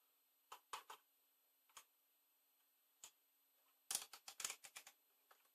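Faint, sparse clicks and ticks of a screwdriver tip touching a potentiometer and circuit board inside an oscilloscope, with a quick run of louder clicks about four seconds in.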